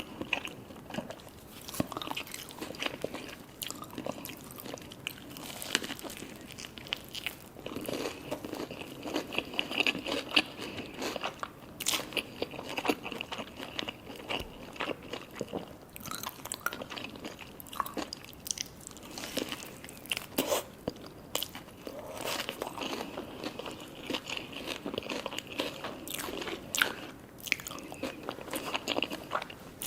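Close-miked biting and chewing of sushi hand-roll cones, with frequent crisp crunches throughout.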